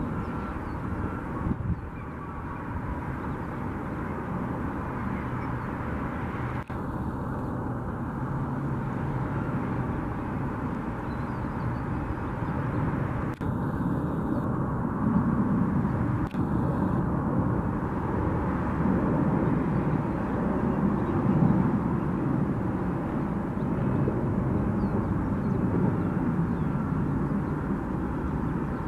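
Jet airliner engines running, a steady rushing noise that grows somewhat louder over the middle of the stretch, with a few abrupt cuts in the sound.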